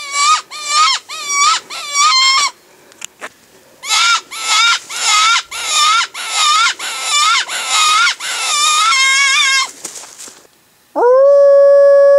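Predator call sounding a run of wavering, squealing distress cries, about two a second, in two series with a short pause between. Near the end a long, steady howl-like note starts and holds.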